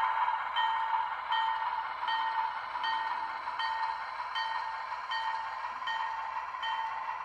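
Model locomotive bell from a Bachmann Alco S4 switcher's onboard sound, ringing steadily about once every three-quarters of a second over a constant hiss from its small speaker, growing slightly quieter as the locomotive moves away.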